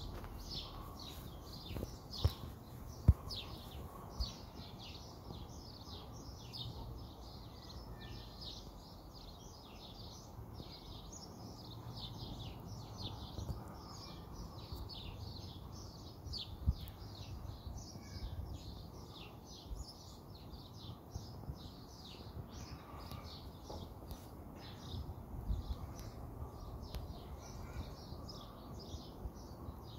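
Small birds chirping continuously in many quick, short calls over a low rumble, with a few sharp knocks, two within the first few seconds and one about midway.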